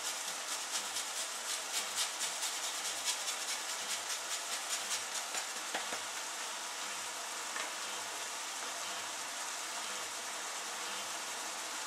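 Lemon peel rubbed over a fine grater in quick scraping strokes, about three a second, stopping about six seconds in, over the steady hiss of chicken simmering in its sauce in the pan.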